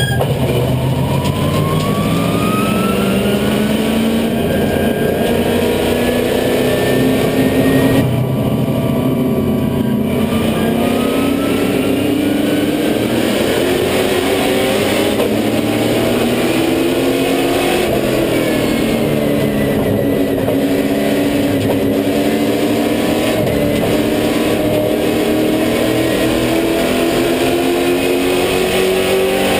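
Super Late Model race car's V8 engine heard from inside the cockpit at racing speed. Its pitch climbs for long stretches as the car accelerates and drops sharply twice, about eight and eighteen seconds in, as it slows.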